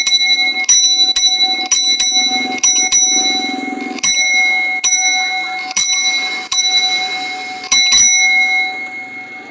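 Brass doorbell, a mechanical bell with no electricity, rung with about a dozen strikes at an uneven pace. Each strike leaves a clear, loud ringing tone that carries into the next, and the ringing fades out near the end.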